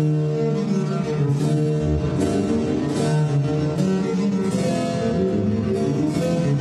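Instrumental intro music: plucked string notes, about one a second, over held low tones that shift in pitch.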